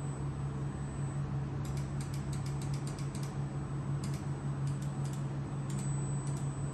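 Steady low hum of an LCD laser repair machine, with runs of quick, light clicks, several a second, coming in bursts about two seconds in and again near the end.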